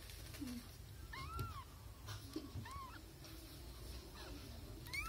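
Newborn kittens, only hours old, mewing faintly: a few short, thin, high cries that rise and fall in pitch, one of them near the end.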